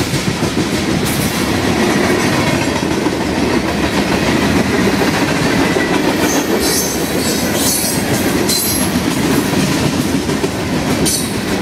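High-sided freight cars of a CSX garbage train rolling past, a steady rumble of steel wheels on the rails. Short high-pitched squeals come through several times in the second half.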